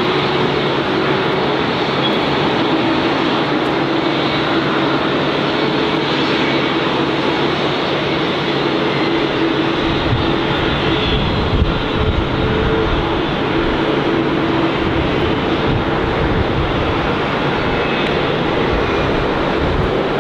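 Airbus A321neo jet engines (CFM LEAP-1A turbofans) running with a steady hum over a broad rush of engine noise. About halfway through, a deeper rumble swells in as thrust comes up for the takeoff roll.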